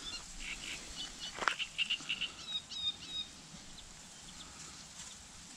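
Small birds chirping in short, quick high notes with a brief trill, over faint outdoor background; the birdsong stops about three seconds in.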